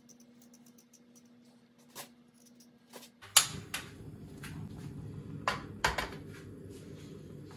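A portable cassette-type gas stove is lit with one sharp click of its igniter a little under halfway through. Its burner flame then runs with a steady low rumble, under a few knocks and clanks as a pot is handled on the stove.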